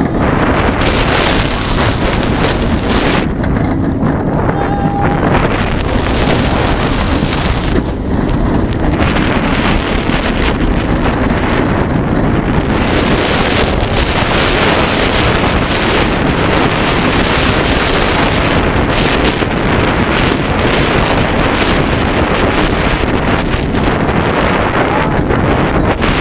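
Wind rushing loudly over the microphone of a front-seat camera on the Fahrenheit steel roller coaster, with the train running along its track beneath, in a continuous, unbroken noise.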